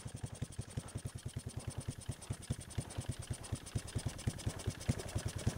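Suzuki QuadSport 230 ATV's single-cylinder four-stroke engine idling, a steady low putter of about ten beats a second.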